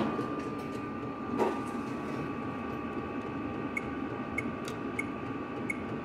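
Chinese diesel air heater running: a steady blower hum with a constant whine. About a second and a half in there is one knock, and from a little past halfway the fuel dosing pump ticks evenly, about one tick every two-thirds of a second.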